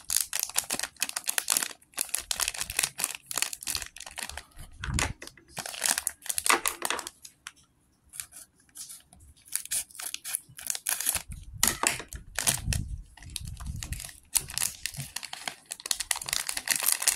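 LEGO minifigure blind bag crinkling and rustling in the hands as it is opened, in irregular bursts with a short lull in the middle. A few dull bumps are mixed in.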